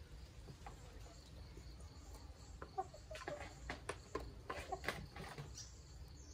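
Chickens clucking in short bursts, busiest in the middle few seconds, over a scatter of sharp ticks from beaks pecking feed out of a plastic basin.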